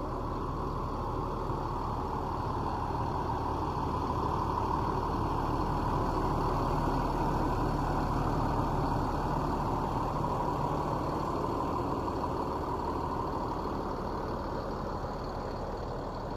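Large diesel bus engine idling steadily, growing a little louder toward the middle and easing off again.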